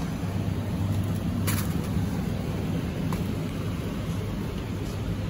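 Steady low hum and rumble of supermarket background noise, with a couple of faint clicks.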